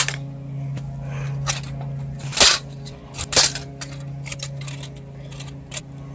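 Sharp knocks and cracks of a plastic smoke detector housing being struck and broken apart: three loud hits, one right at the start, one about two and a half seconds in and one a second after that, with lighter clicks between. A steady low hum runs underneath.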